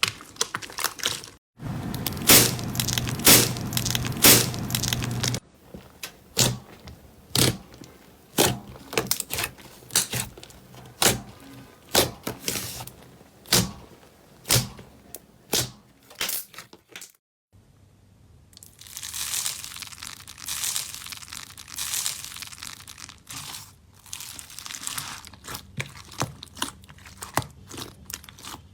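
Slime being squeezed and poked by hand, giving crunchy crackles and sticky popping clicks: dense crackling at first, then separate sharp pops about once a second, and after a brief break, denser crackling again.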